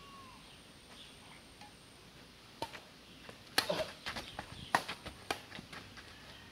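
Badminton racket strings hitting a shuttlecock in an outdoor rally: a handful of sharp smacks roughly a second apart, the first about two and a half seconds in, with softer scuffs between.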